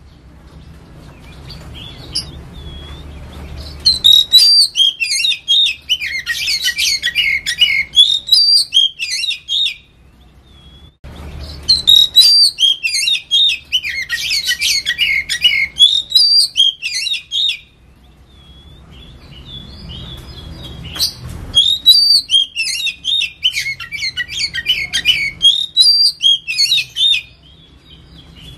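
Oriental magpie-robin (kacer) singing in the 'ngetem' style: three bouts of about six seconds each of dense, rapid, high chattering notes, with short pauses between them.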